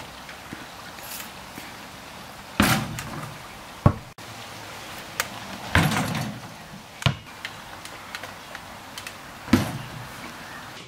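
A basketball knocking against a portable driveway hoop and bouncing: about five sharp knocks a second or two apart, some with a short ringing tail, over a steady outdoor hiss.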